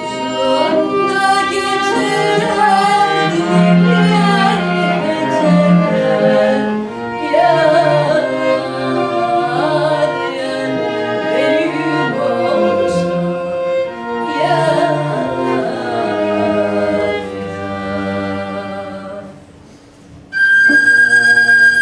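Live chamber arrangement of a Turkish folk song: violin, viola and cello play together with a woman singing. The strings fade away near the end, and a flute then comes in on a long held high note.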